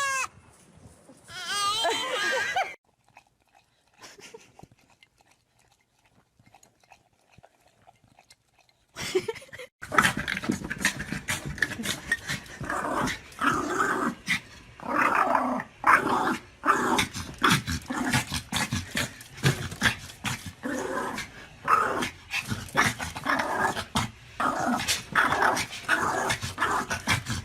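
A dog vocalizing. Wavering, pitched, howl-like calls come in the first few seconds, then after a quiet spell, from about nine seconds in, a long run of rapid grumbling and growling noises.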